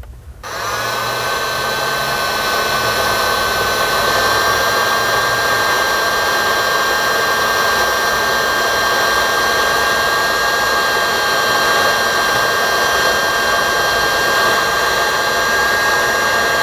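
Electric heat gun switched on about half a second in and running steadily: a rush of blown air with a steady motor whine that rises briefly as it spins up.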